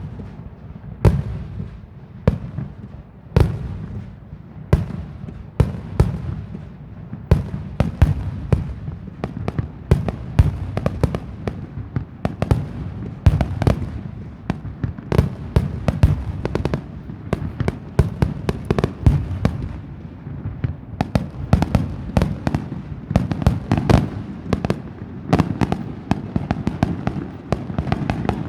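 Fireworks going off in a rapid, irregular barrage of sharp bangs and crackles, several a second, over a continuous low rumble of echoing blasts.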